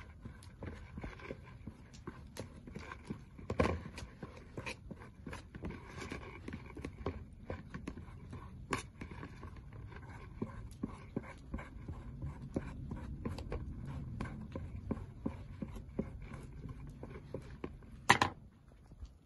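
Irregular clicks and taps of long metal kebab skewers knocking against a blue enamel bowl as raw potatoes are pushed onto them with a small knife. There are two louder clanks, one a few seconds in and one near the end.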